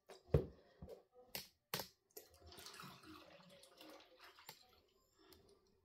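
A plastic tub knocked and handled a few times, then thick wet corn-and-millet pap slurry sloshing and pouring out of it into a cloth pillowcase strainer, starting about two seconds in.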